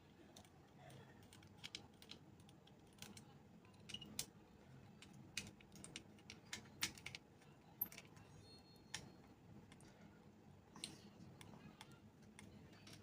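Faint, irregular clicks and taps, about a dozen, of a small screwdriver and metal parts being handled while the CPU heat sink screws of a mini PC are undone.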